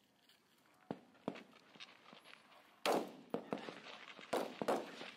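Rifles firing on a range: irregular single shots from several shooters on the firing line. Two fainter shots come about a second in, then louder cracks from about three seconds in, each with a short echo.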